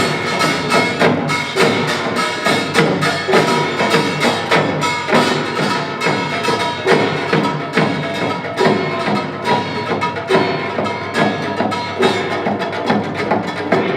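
Korean pungmul percussion ensemble playing a dense, driving rhythm, with loud accents about twice a second and ringing metallic tones over the drumming.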